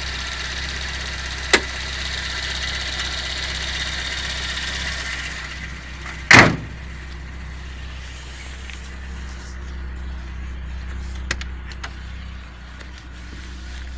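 VAZ 2109 engine idling warm, its valve tappets (bucket lifters) clattering in worn bores in the cylinder head. A sharp click comes about a second and a half in, then a car door shuts about six seconds in, and after that the engine sounds muffled.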